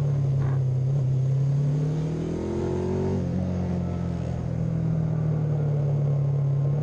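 Classic 500cc-class racing motorcycle engine running hard at high revs, heard from an onboard camera with wind rush. Its pitch climbs from about two seconds in, then falls back suddenly just after three seconds and holds steady again.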